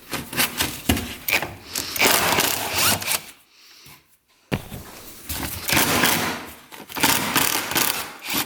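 Bolts being backed out with a tool, in two runs of rattling mechanical noise with a short pause of about a second between them.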